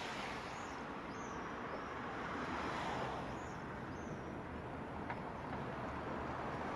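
Steady outdoor road noise of cars driving, gently swelling and easing, with a few faint high bird chirps in the first few seconds.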